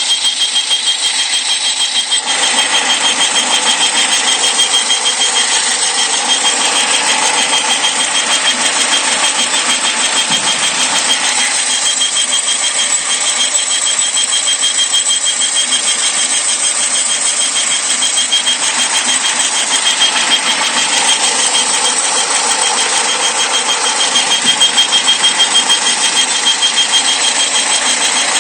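2001 Saturn SL's 1.9-litre four-cylinder engine running, with a steady high-pitched whistle over it that sounds like a flute. The owner traces the whistle to the intake manifold area and rules out the belt pulleys, since it remains with the belt removed.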